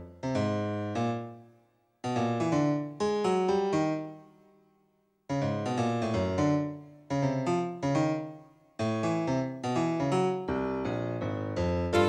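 Piano music: notes and chords struck and left to die away, in short phrases with brief pauses between them.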